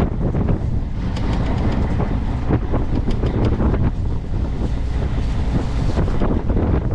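Wind buffeting the microphone over the low rumble of a fishing boat at sea, with scattered short clicks and knocks.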